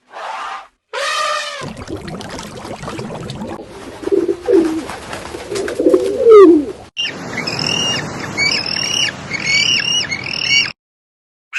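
A string of short animal call clips cut together. It opens with two brief pitched calls, then a noisy stretch with low gliding calls, and ends with a small bird's quick, repeated high chirps for about four seconds.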